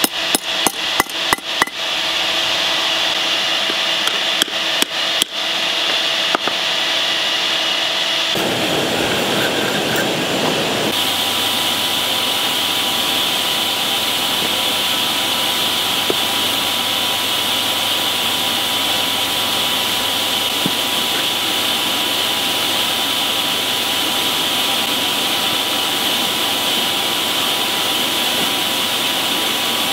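Hammer blows on a steel spearhead against an anvil: a quick run of about eight strikes, then a few more around five seconds in, as the warped blade is straightened. From about eight seconds in, the forge's air blower runs with a steady rush through its hose into the coal fire.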